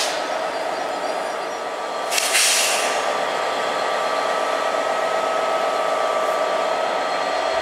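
Diesel-hauled passenger train, worked by a Class 67 locomotive, standing with a steady engine hum. A short hiss of air comes at the start, and a louder hiss of air comes about two seconds in.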